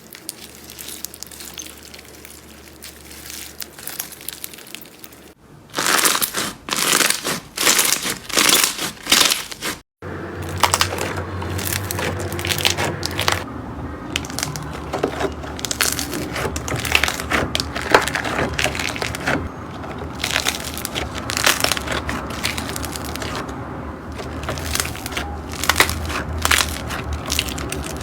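Slime being squeezed and pressed by hand, with dense crackling and crunching. It changes abruptly twice, after about five seconds and again after about ten, as the clips change; the middle stretch is the loudest.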